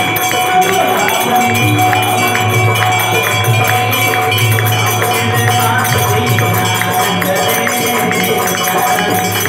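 Devotional aarti music: held droning notes under a steady, even beat of jingling hand percussion.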